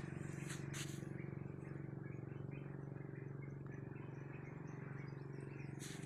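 Faint steady low hum with a few short bird chirps about half a second in.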